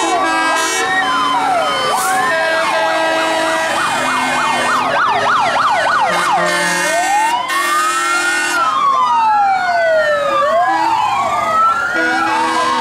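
Several fire truck sirens sounding at once, their slow rising-and-falling wails overlapping out of step. A fast warbling siren cuts in for a few seconds around the middle.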